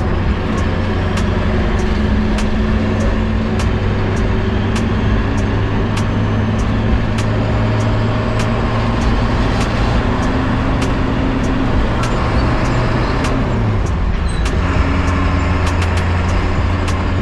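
Delivery step van's diesel engine running under way in the cab, its note sliding down once about three-quarters of the way through. A sharp, regular tick sounds over it a little under twice a second.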